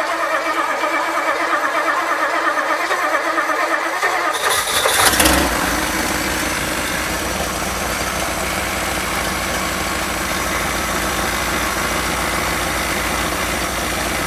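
1957 Ford Thunderbird's Y-block V8 being started: the starter cranks it for about four and a half seconds, it catches with a brief surge, then settles into a steady idle. It fires without the gas pedal being pumped.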